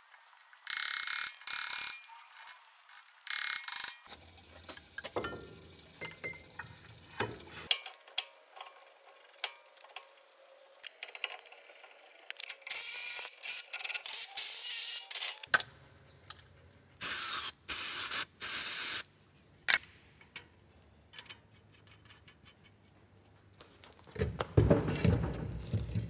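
Hand tools on a wheel loader's axle hub bolts: short separate bursts of ratcheting and metal clicking, with quiet gaps between them.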